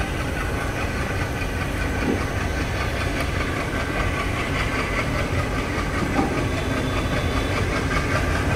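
Rameshwaram–Chennai Express passenger coach rolling slowly through a station, heard from its open door: a steady rumble with a hiss of rushing air.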